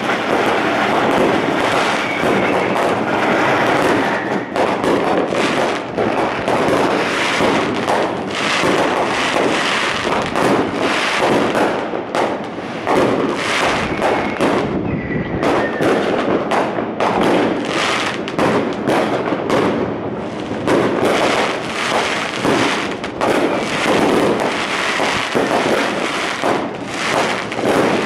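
Fireworks bursting in a dense, nearly continuous run of cracks and bangs, easing off briefly about halfway through.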